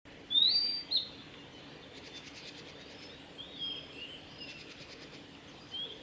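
Male blue-and-white flycatcher singing: a loud, clear whistled phrase near the start, followed by softer whistled notes and quick buzzy trills.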